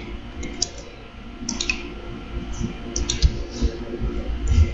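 Keystrokes on a computer keyboard and mouse clicks, irregular and scattered, with a few dull thuds.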